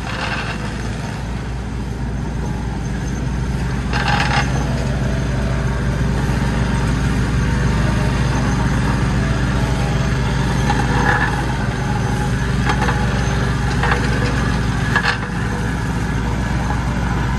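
Plate compactor's small engine running steadily as the vibrating plate is worked over fresh asphalt, growing louder over the first few seconds, with a few brief knocks.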